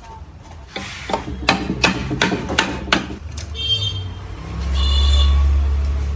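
Metal tools clinking and knocking on metal parts in quick irregular strikes while the gearbox is being taken out. A loud low rumble then swells about two-thirds of the way in and slowly fades.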